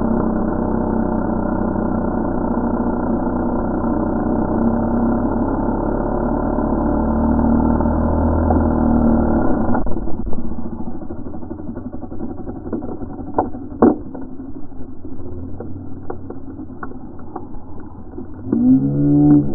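Two-stroke chainsaw with a 16-inch bar running steadily through the back cut of a dead ash stem, then stopping abruptly about ten seconds in. About four seconds later there is a single sharp knock, followed by a few small clicks and knocks.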